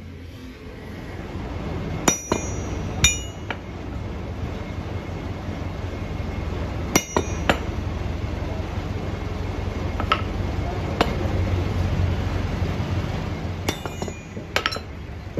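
Hammer blows on a machined metal harrow hub: about eight sharp, ringing metallic strikes at irregular intervals, some in quick pairs. A steady low hum runs underneath.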